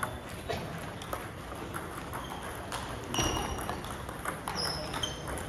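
Table tennis ball knocking off the bats and table in a rally, a string of sharp, irregular clicks with the loudest about three seconds in, plus a few short high squeaks.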